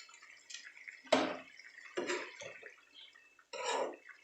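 Curry gravy boiling in a pan, with a handful of separate wet plops and splashes a second or so apart.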